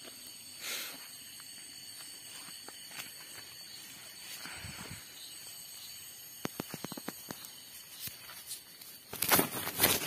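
Feet and hands rustling through grass and dry leaf litter, with a run of small sharp clicks about six to seven seconds in and a loud burst of rustling near the end. Underneath, a steady high chorus of night insects.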